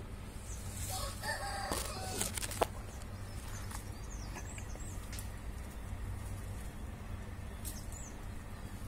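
A rooster crows once in the background about a second in, with a few short high bird chirps a couple of seconds later, over a steady low hum.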